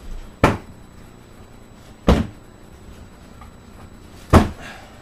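Hard plastic rifle case being handled: three sharp clacks, roughly two seconds apart.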